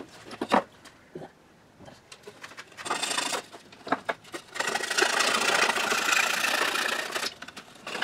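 Fine-toothed X-Acto razor saw cutting across a wooden whirligig blade by hand, in fast back-and-forth strokes: a short run about three seconds in, then a steadier stretch of sawing from about four and a half to seven seconds.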